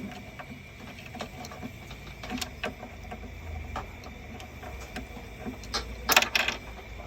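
Irregular light clicks and taps of small plastic and metal paper-shredder parts being handled and fitted during reassembly, with a louder clatter about six seconds in, over a faint steady high hum.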